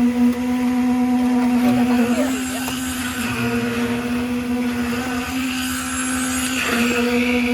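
A small engine running steadily with an even hum, its pitch shifting slightly about two seconds in and again near the end.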